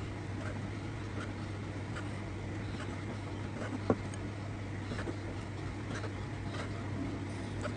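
Kitchen knife cutting raw bigeye scad fillets on a plastic cutting board: faint taps of the blade on the board, about two a second, with one sharper knock about four seconds in. A steady low hum runs underneath.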